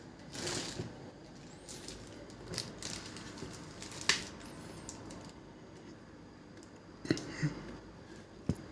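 Handling noises: a short rustle about half a second in, then scattered sharp clicks and light knocks, the strongest about four seconds in and three more near the end.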